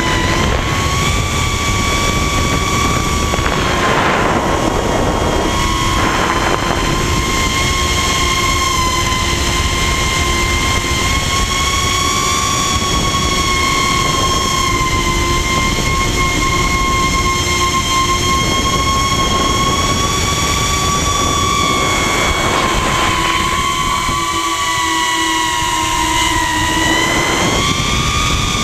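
150 mm FPV quadcopter's brushless motors and propellers heard onboard in flight: a steady high whine whose pitch shifts slightly with throttle, with a few brief rushes of air noise.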